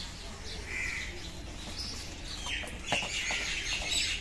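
Small birds chirping and twittering, with a longer high call about a second in and quick dense chatter through the second half, plus a few light knocks.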